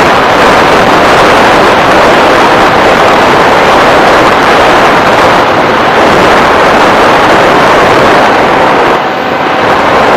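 FPV model aircraft in flight: a loud, steady rush of propeller and wind noise with a faint steady motor whine underneath, easing briefly about nine seconds in.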